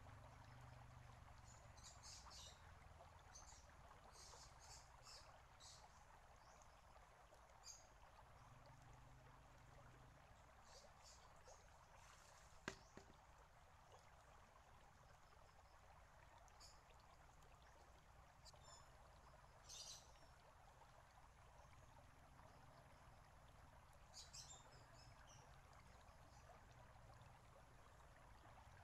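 Faint steady trickle of water from a stone garden fountain, the water welling up from its top and running down the stone. Short high bird chirps come and go throughout, and there is a single sharp click about halfway through.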